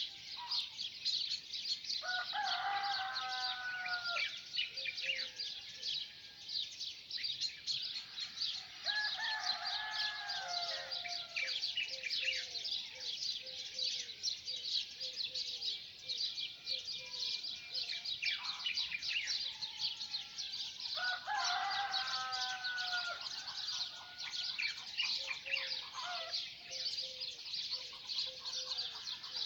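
A rooster crowing three times, each crow about two seconds long, over a constant chorus of small birds chirping.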